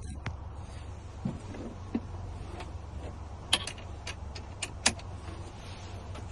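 Several sharp metallic clicks as a car key blank is flipped over and re-clamped in a key-cutting machine, over a steady low hum.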